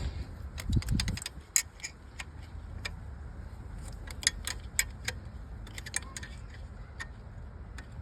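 Irregular metallic clicks and clinks of a spanner or socket working a 12 mm bolt loose on the alternator mounting of a Nissan GQ Patrol engine. The clicks come in a cluster near the start and more sparsely in the middle.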